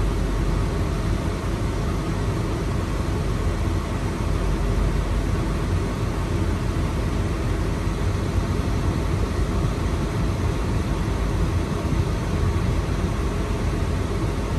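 Air conditioning blower in a BMW X5 pushing air out of a dash vent: a steady rush with a low rumble underneath from the N62 4.8-litre V8 running at a standstill.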